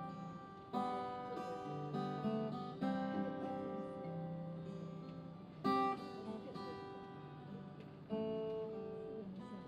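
Solo acoustic guitar strumming chords, a strong chord struck about every two to three seconds and left to ring, with lighter strokes between.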